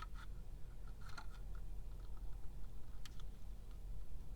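A few light, scattered plastic clicks and taps from a handheld squeeze-handle label maker as label tape is fed into its slot.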